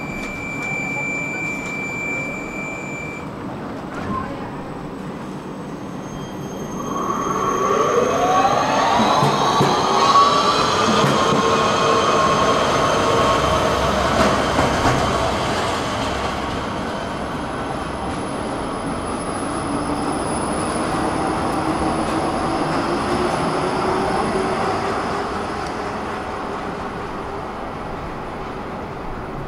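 Škoda 14T low-floor electric tram pulling away from a stop. Its traction drive whines and rises in pitch for a few seconds as it accelerates, then holds a steady tone and fades as the tram moves off. Street traffic can be heard underneath.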